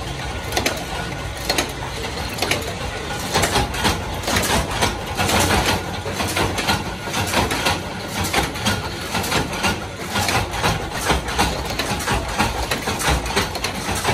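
Screw-shell making machinery running, with dense, irregular clicking and clattering of metal parts over a steady machine hum.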